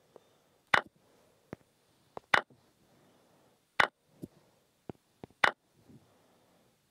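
Chess app move and capture sounds: four sharp clicks spaced about a second and a half apart, with fainter ticks in between.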